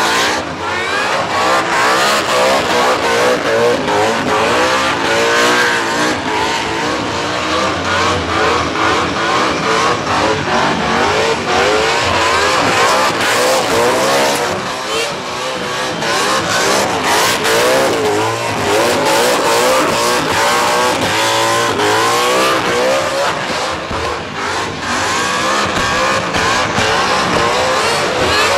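A 540 cubic-inch V8 in an HT Holden revving hard during a burnout, its pitch rising and falling over and over as the rear tyres spin on the pad.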